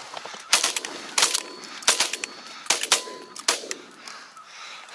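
Shotguns firing a rapid volley at a flock of geese: about six sharp shots over some three seconds, starting about half a second in, some in quick pairs.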